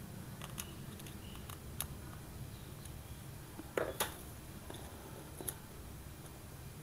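Scattered small clicks and taps of a baitcasting reel's plastic and metal parts and hand tools being handled on a tabletop, about half a dozen, with the loudest pair of knocks about four seconds in, over a steady low hum.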